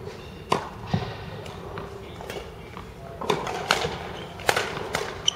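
Badminton rackets striking a shuttlecock during a rally: a string of sharp hits at irregular intervals, with a lull in the middle and a quicker run of hits in the second half.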